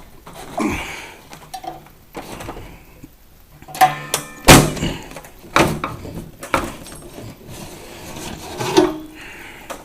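Parts of a salon hair dryer being handled and forced into place by hand: irregular clicks and rubbing, with several sharp knocks, the loudest about four and a half seconds in.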